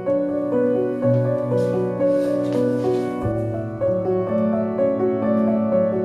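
Background piano music: a calm melody of held notes changing about every half second.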